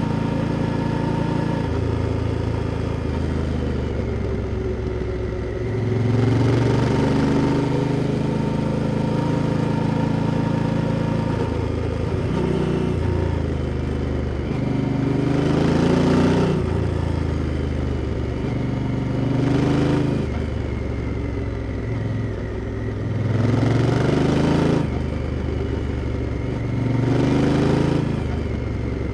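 Honda Africa Twin's parallel-twin engine riding through the gears: the revs climb and drop back several times, changing pitch in steps as gears are shifted on the manual gearbox.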